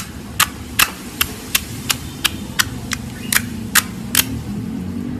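Slime being worked by hand and giving off sharp, regular clicks and pops, about two and a half a second, that stop a little after four seconds in.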